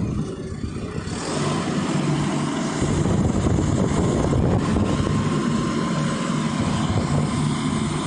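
Engine of a 2.0 m³ self-loading mobile concrete mixer running steadily, growing louder about a second in.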